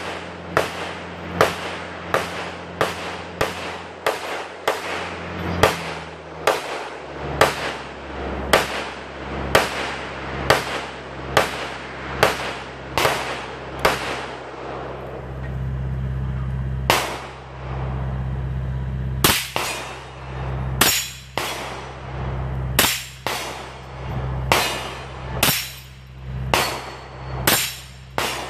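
Semi-automatic rifle firing a long string of shots, each a sharp crack, at a steady pace of about one and a half a second at first, then slower and more uneven from about halfway on.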